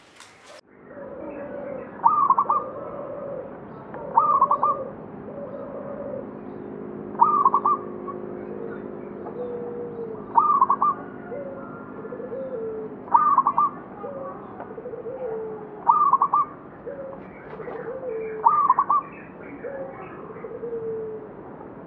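Zebra dove (local perkutut) cooing its song. The sound starts a little under a second in, then a bright call phrase repeats about every two and a half to three seconds, with softer, lower coos between the phrases.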